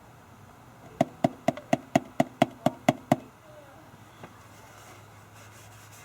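A quick run of about ten sharp, evenly spaced knocks, about four a second, each with a short ring, stopping abruptly after about two seconds.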